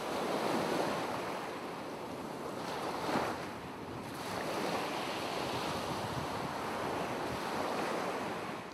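Ocean waves washing, an even rushing noise that swells briefly about three seconds in.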